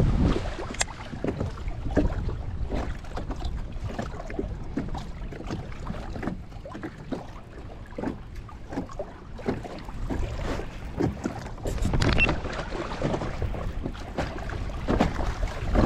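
Small waves lapping and slapping irregularly against the hull of a small plastic fishing boat, with wind buffeting the microphone.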